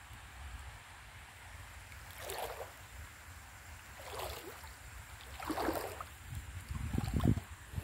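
Water sloshing as a person wades through a shallow stream: four separate swishes about a second and a half apart, the last one heavier and lower, over a steady low rumble.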